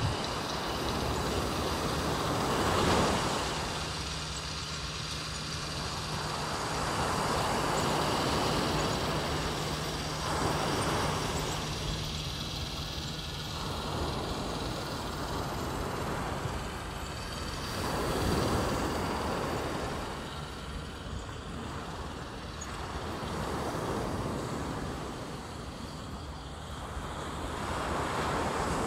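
Ocean surf breaking on a sandy beach: a steady wash of noise that swells and fades as each wave comes in, every few seconds.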